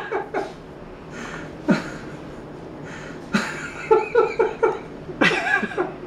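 A person near the microphone chuckling softly and breathing, with two sharp knocks from the camera being handled.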